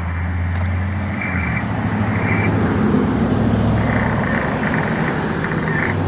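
Spirit box radio sweep played from a phone: a steady, loud hiss of static, with short fragments of sound breaking through now and then.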